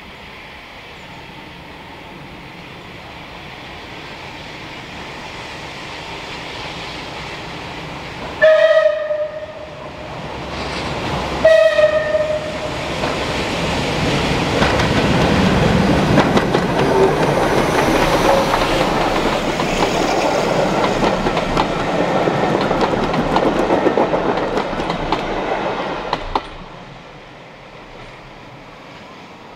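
Bulleid Battle of Britain class Pacific No. 34072, a three-cylinder steam locomotive, approaches with two short whistle blasts about three seconds apart. It then passes loudly with its train for about twelve seconds, a busy run of wheel and rail clatter, before the sound drops away suddenly near the end.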